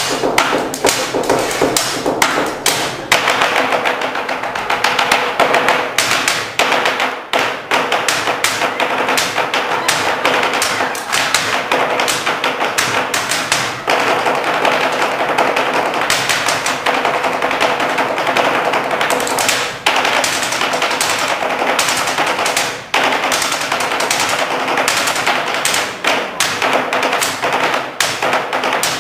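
Stage percussion on a long wooden tabletop: several performers beating out a fast, rhythmic pattern of knocks and taps with their hands and small handheld objects.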